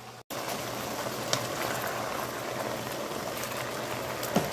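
Green beans and onions simmering in a skillet of water and Italian dressing: a steady bubbling sizzle that cuts in a moment after the start, with a light tap near the end.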